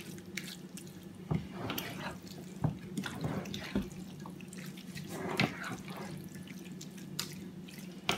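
Wet squelching and scraping of hands kneading a raw osbane stuffing of chopped meat, chickpeas and herbs in a bowl, in irregular strokes. A steady low hum runs underneath.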